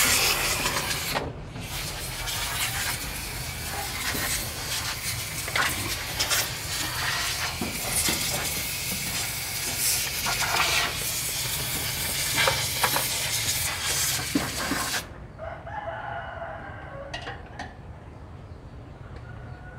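A loud, steady hiss laced with small knocks and crackles, which cuts off suddenly about fifteen seconds in; a quieter background with a few short calls follows.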